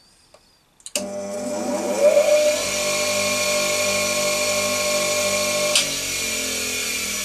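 SiP 6-inch half-horsepower bench grinder switched on with a click about a second in, its induction motor running up to speed in a rising whine and then running steadily. It now starts on its own, the fault fixed. Near the end it is switched off with a click and begins to slow down, its pitch falling.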